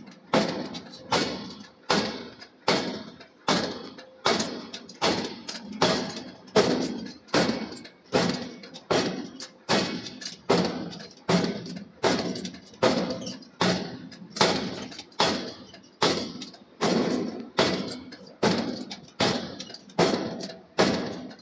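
Forging hammer striking hot steel in a steady rhythm, about three heavy blows every two seconds, each with a short ringing decay.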